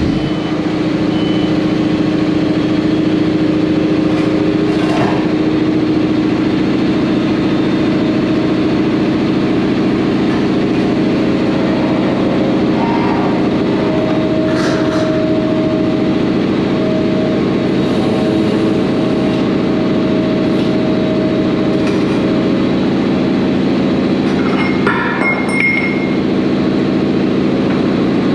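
Bulldozer's diesel engine running steadily while its hydraulics lower the ripper shank into the tile-plow mount. A higher whine joins for a few seconds near the middle, and a few sharp metal clunks come through.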